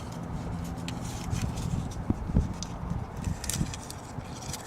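Electrical leads and connectors being handled: scattered light clicks and taps at an irregular pace over a faint low hum.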